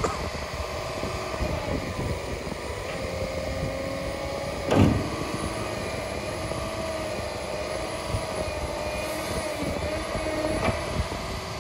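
Tigercat 875 log loader's diesel engine and hydraulics running as the boom swings and reaches out, with a wavering whine over the engine. A loud clunk about five seconds in and a lighter knock near the end.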